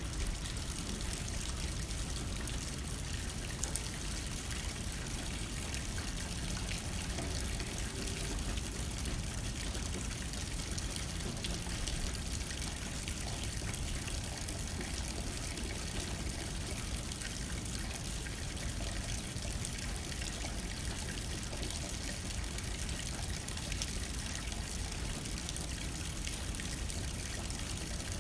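Steady rain hitting a window pane, an even hiss with scattered faint drop ticks, over a low rumble of light wind.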